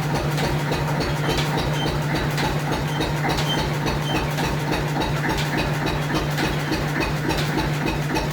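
Lister CS6 single-cylinder stationary diesel engine running steadily under a light load: an even, fast low beat with a light regular clatter on top.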